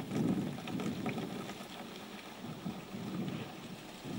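Hand-lever street water pump being worked, water gushing from its spout into a plastic canister. The splashing swells and eases with the pump strokes, about once a second.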